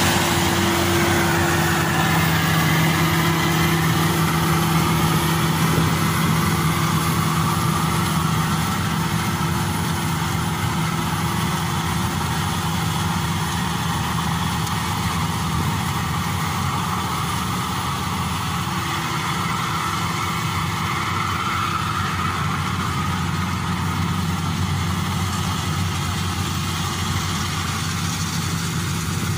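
Maxxi Bimo 102 rice combine harvester running steadily as it cuts and threshes rice, with its engine giving a constant hum over the rushing noise of the machinery.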